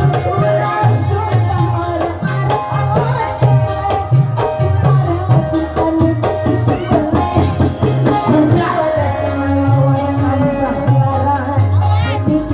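Loud music with a steady, repeating drum and bass beat and melodic lines over it.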